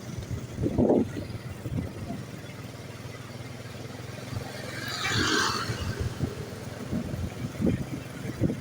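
Roadside traffic: a vehicle engine running steadily, with a short louder surge about a second in and a brief hiss about five seconds in. No telolet horn is sounding.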